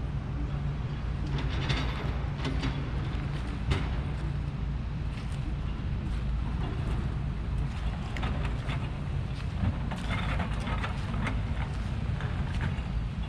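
A heavy diesel machine running steadily, with irregular clattering and scraping of rubble and metal over the engine rumble.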